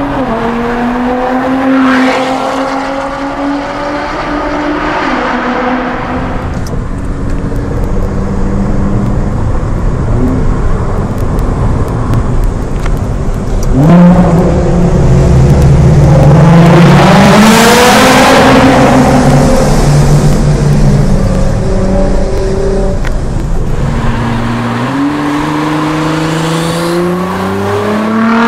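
Modified Nissan GT-R engines with aftermarket exhaust, heard from a neighbouring car as they drive and accelerate, the pitch climbing with the revs. About halfway through it cuts to a louder stretch echoing inside a tunnel, and near the end the engine revs up sharply as a GT-R passes close.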